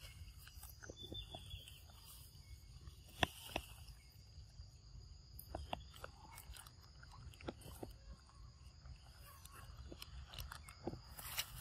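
Young macaque biting and chewing a ripe mango: faint, irregular wet smacks and clicks of eating, over a steady high insect drone.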